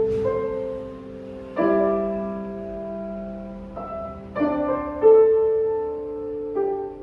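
Piano playing a slow passage of sustained chords, a new chord struck every second or two and each left ringing as it fades.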